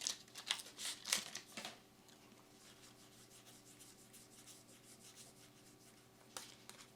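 Trading card booster pack and cards being handled: a few short scratchy rubbing and rustling sounds in the first second and a half, then only a faint steady hum with one small rustle near the end.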